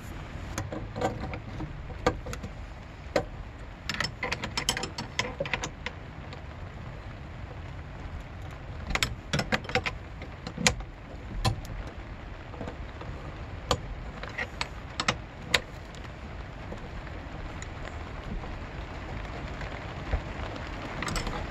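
Brass flare nuts on copper refrigerant line-set tubing being handled and threaded onto a mini-split head unit's fittings: scattered sharp clicks and small metallic taps, some in quick clusters, over a steady low rumble.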